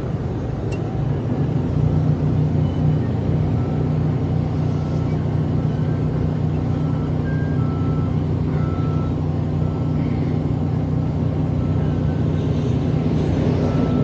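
A large engine running steadily with a low drone. A faint, short, high beep repeats roughly once a second through most of it.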